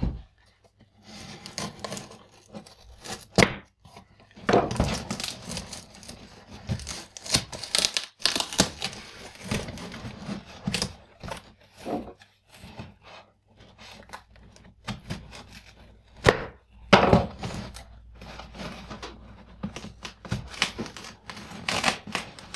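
Cardboard shipping box being opened by hand: tape and cardboard tearing, flaps rubbing and scraping, with irregular knocks and thuds.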